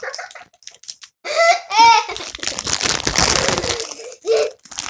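A child giggles briefly, then plastic packaging crinkles and rustles as a pop-it fidget toy is worked out of its wrapper.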